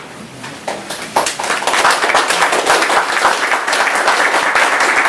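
Audience applauding: a few scattered claps at first, then building to steady clapping.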